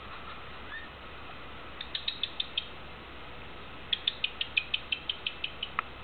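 White-bellied caique making rapid clicking sounds, about six or seven clicks a second: a short run of about six clicks about two seconds in, then a longer run of a dozen or so from about four seconds.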